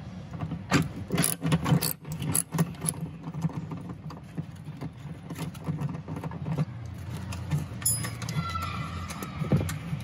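Ratchet wrench with a socket clicking as a seat belt mounting bolt is worked loose. A string of sharp metallic clicks comes in the first three seconds, then faster, fainter ratcheting, over a steady low hum.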